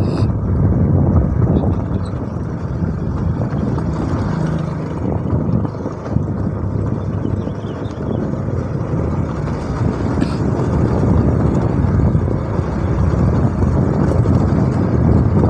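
Motorcycle ridden slowly over a rough gravel lane: the engine runs steadily under a dense low rumble of road and wind noise, a little quieter midway.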